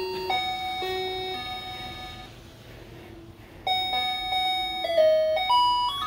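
A musical electronic doorbell chime plays a simple beeping tune, note by note. The tune dies away on a long held note, and after a short pause a tune starts up again about two thirds of the way in.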